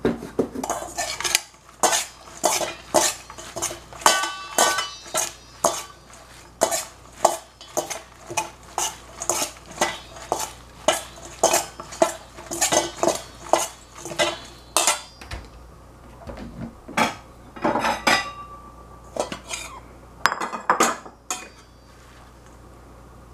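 A metal spoon clinking against a stainless steel mixing bowl as salad is tossed, about two clinks a second, with the bowl now and then ringing briefly. After about fifteen seconds the clinks become sparse.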